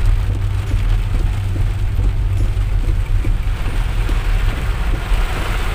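Heavy rain pattering on a car's roof and windshield, heard from inside the cabin, over the steady low rumble of the car driving.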